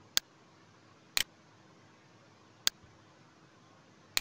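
Computer mouse clicking: four sharp clicks spaced a second or more apart, two of them quick double clicks, over faint room hiss.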